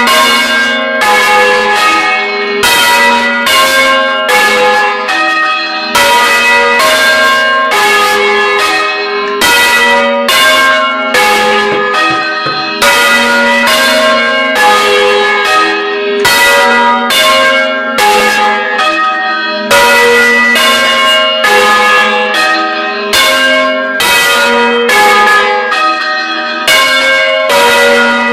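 A set of church bells swung by hand on ropes, ringing up close in the belfry. Several bells of different pitch strike in a continuous, overlapping sequence, about two to three strokes a second, each note ringing on under the next.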